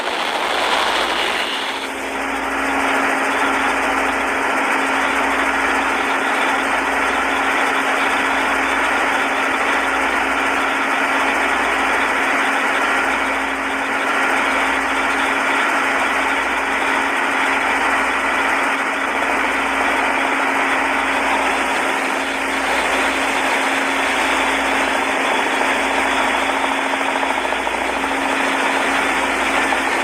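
Motorboat engine running steadily, a constant hum under a loud, even rushing noise.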